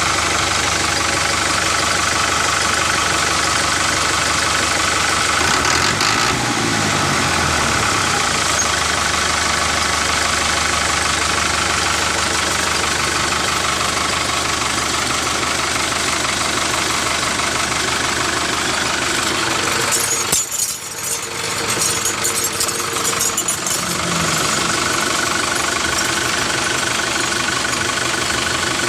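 Tractor engine idling steadily with a knocking beat. About six seconds in its pitch shifts briefly, and around twenty seconds it drops off for a few seconds before running on as before.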